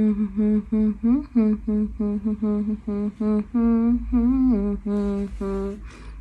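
A woman humming with her mouth closed in a quick run of short 'mm-hm' syllables, used in place of speech. Most syllables hold one pitch, and a few slide down and back up about four seconds in.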